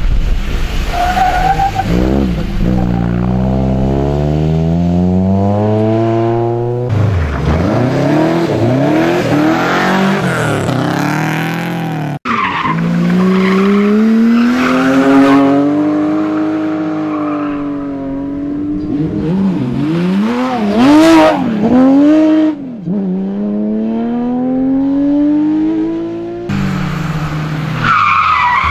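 Rally cars, among them BMW E30 3 Series, driven hard one after another on a loose gravel stage: engines revving with the pitch climbing through each gear and dropping at the shifts, with tyres skidding on the gravel. The sound breaks off sharply several times as one car gives way to the next.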